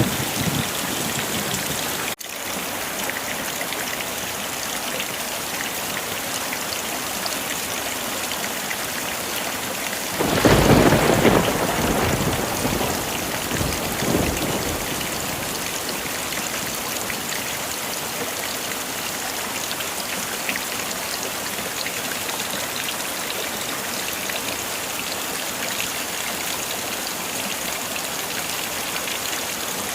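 Heavy rain falling steadily, with a rumble of thunder swelling about ten seconds in and dying away over a few seconds.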